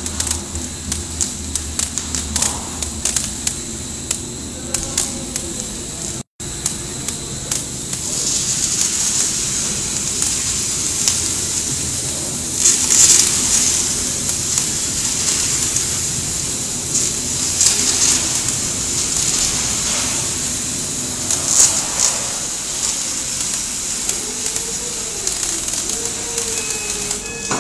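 Stretch-wrapping machine running as it winds plastic film around a pallet load: a steady hiss with rapid clicks in the first few seconds and louder swells every four or five seconds. A wavering tone comes in near the end.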